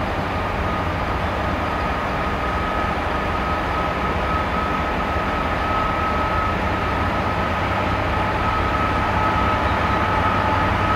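Class 66 diesel-electric locomotive hauling a freight train on approach, its EMD two-stroke V12 engine giving a steady low rumble that grows slowly louder, with a thin steady high whine throughout.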